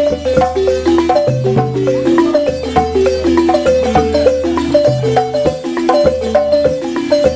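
Balafon, a West African wooden-keyed xylophone, played with mallets in a fast, repeating melodic pattern of struck notes, over a steady low hum.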